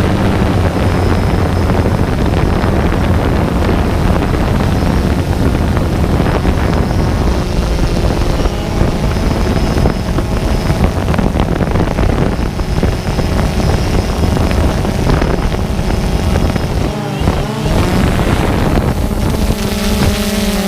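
Loud engine running steadily with rushing wind noise on the microphone, the pitch shifting briefly near the end.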